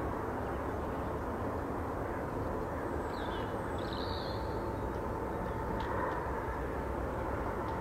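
Steady rumble and hiss of a jet aircraft running on the ramp, with a thin steady whine through it. A faint bird chirp comes in about three seconds in.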